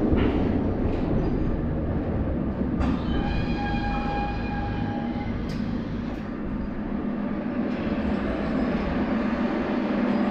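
Moscow metro train heard from inside the car: a steady low running rumble as it moves slowly through a station, with a held high squeal for about two seconds about a third of the way in and a few sharp clicks.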